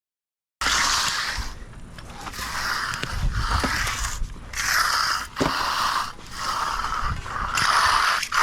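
Repeated scraping strokes of a hand tool working through wet concrete, roughly one stroke a second. The sound cuts in abruptly about half a second in.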